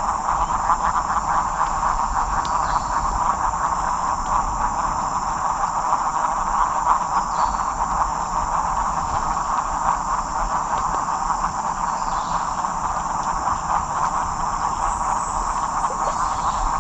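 Dense breeding chorus of frogs: many short calls overlapping into a continuous flickering chatter, under a steady high insect drone.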